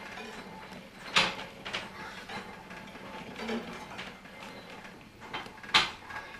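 Rattling and clicking of the Oberweißbacher Bergbahn funicular car riding downhill, with two loud sharp knocks, about a second in and near the end.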